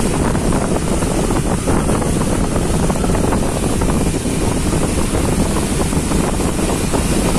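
Heavy wind noise buffeting the microphone of a moving vehicle, over steady road and traffic noise on a rain-wet road.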